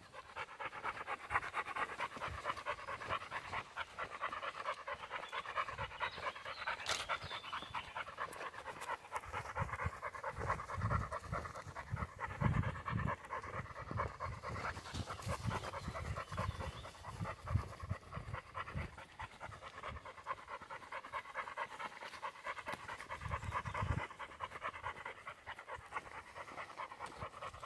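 German spaniel (Deutscher Wachtelhund) panting steadily right beside the microphone, with a few low thuds around the middle and near the end.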